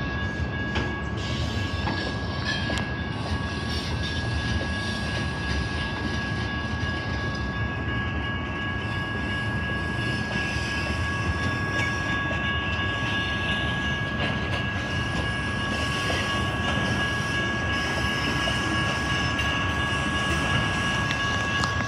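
Freight train rolling past: a steady rumble and rattle of wheels and freight cars, with two steady high-pitched tones ringing over it.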